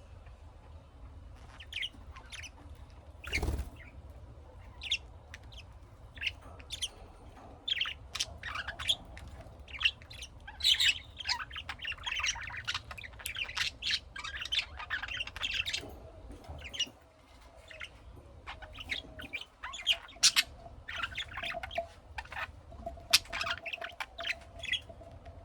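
Pet budgies chirping and squawking in many quick, short calls, busiest in the middle and near the end. There is a single sharp knock about three and a half seconds in.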